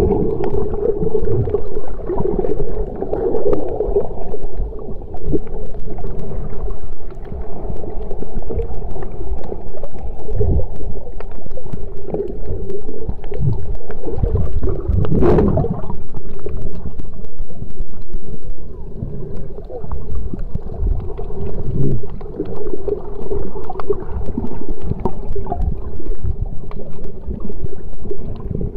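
Muffled underwater sound through a waterproof camera housing: low rumbling and sloshing of water with a steady hum under it, and one louder thump about halfway through.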